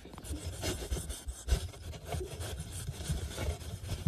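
A cat scrabbling and scratching: a dense, irregular run of scratching and rubbing noise with soft thumps, starting suddenly.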